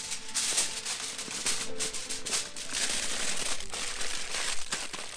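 Aluminium foil crinkling and rustling as it is handled and folded into a packet around potatoes.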